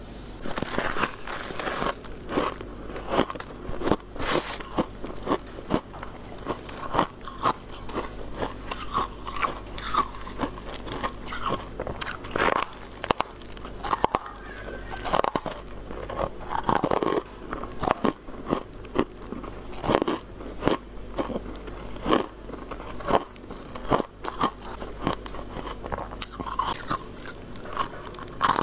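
Hard, crunchy freezer frost being bitten off a clump, one crisp crunching bite after another, roughly one a second.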